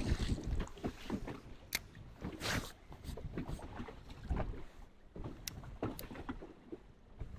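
Wind buffeting the microphone and water lapping against a fishing boat's hull, with a few short sharp knocks.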